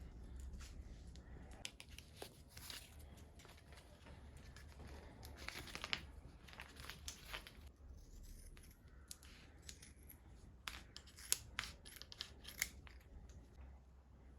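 Faint work on bicycle handlebar tape: scattered rustling and scraping with sharp clicks, busiest about five to seven seconds in and again near the end.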